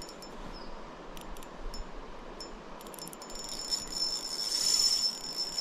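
An insect singing high-pitched: a few short chirps, then a continuous trill from about three seconds in, over a steady rush of river water.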